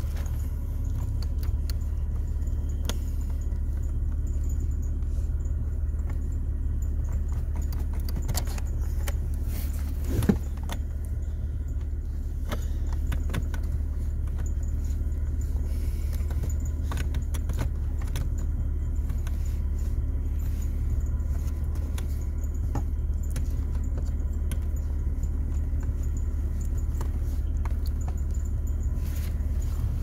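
Scattered clicks, rustling and handling knocks as a phone and hands move about a car's driver footwell, with one louder knock about ten seconds in, over a steady low hum.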